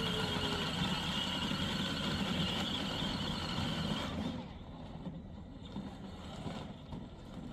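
Electric drive motors and gearboxes of a 24-volt kids' ride-on car whining steadily as it drives, dropping away sharply about four seconds in.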